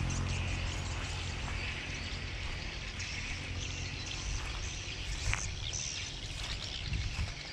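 Outdoor ambience: the low rumble of a passing vehicle fading away at the start, then a steady distant traffic hum with small birds chirping.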